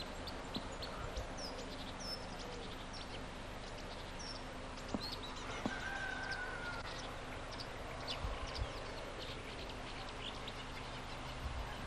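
Wild birds chirping and calling, many short scattered chirps with one longer, level call about six seconds in, over a steady low hum. A few faint low thumps come around eight and a half seconds in.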